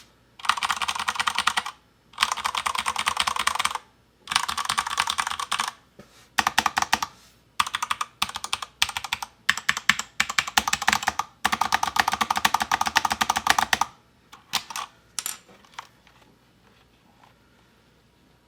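Typing on a DURGOD Fusion mechanical keyboard with Cherry MX Speed Silver linear switches. There are several fast runs of rapid keystrokes with short pauses between them, separate slower key presses in the middle, and another long fast run. A few last presses come about fifteen seconds in, and the typing stops about a second later.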